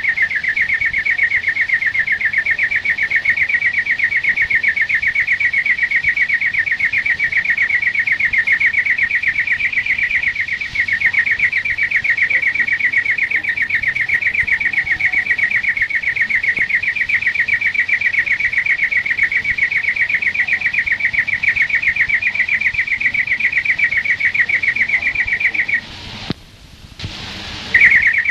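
European greenfinch (flurya) singing a long, unbroken trill of rapid repeated notes at an even pitch. It breaks off for about two seconds near the end, then starts again.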